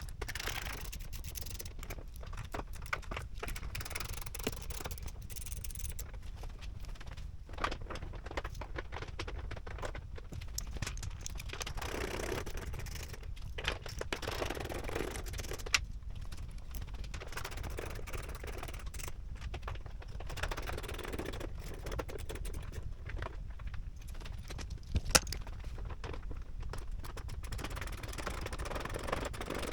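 Scattered clicks, scrapes and rattles of hand tools and plastic fairing parts being handled while a motorcycle fairing is taken off, over a steady low hum. One sharper click comes about 25 seconds in.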